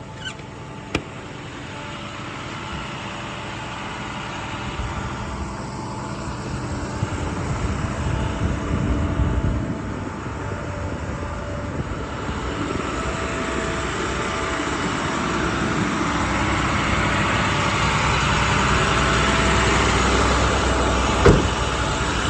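International Durastar's MaxxForce diesel running steadily, growing gradually louder, with one sharp click near the end.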